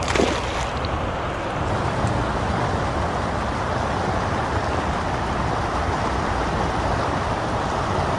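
Steady rush of flowing creek water, with a short sharp burst of noise right at the start.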